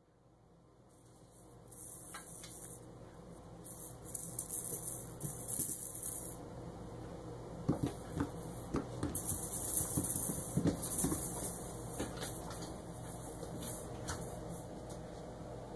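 Kittens scampering and pouncing on carpet and batting small toys: soft thumps and scuffles, busiest around the middle, over a steady low hum and passing hiss.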